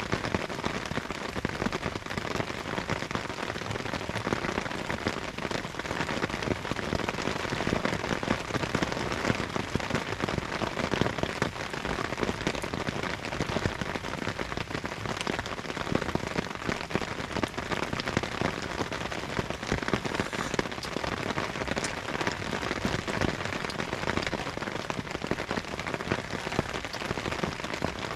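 Steady rain falling, with the many separate drop impacts heard close by as a dense, even ticking throughout.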